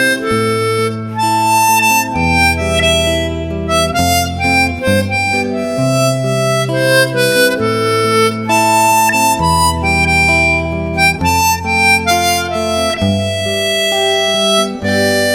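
Background music: a harmonica melody of held notes over bass notes that change every second or two.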